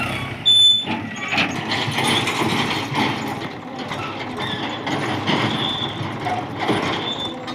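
Mahindra backhoe loader at work, with dense, irregular clattering and clanking of metal over its running engine. A single reversing beep sounds about half a second in.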